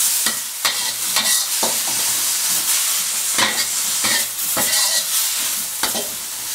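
Thai morning glory stir-frying over high heat in a wok: a steady sizzle, with the metal spatula repeatedly scraping and knocking against the wok as the greens are tossed.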